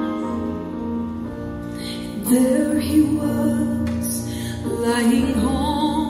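A female solo voice singing over instrumental accompaniment, the voice coming in about two seconds in with a wavering, held pitch.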